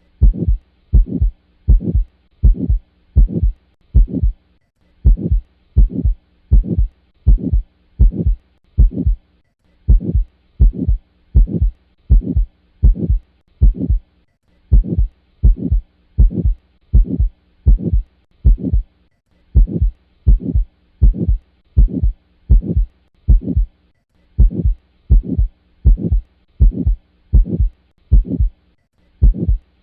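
Recorded heart sounds from a stenotic heart valve: repeated lub-dub beats, about one and a half cycles a second, with a systolic ejection murmur, the sign of valve stenosis. The short recording breaks off briefly and restarts about every five seconds.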